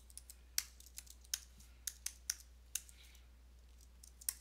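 Typing on a computer keyboard: about ten separate keystrokes at an uneven pace, as a variable name is typed out.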